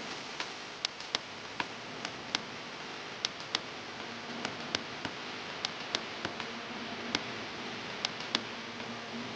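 Irregular sharp clicks or taps, about two a second, over a steady background hiss.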